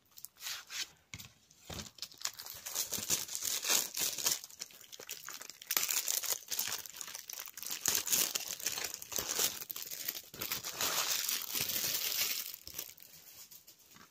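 Plastic shrink-wrap being torn open and peeled off a DVD case, crinkling and crackling. It gets louder about halfway through and dies down near the end.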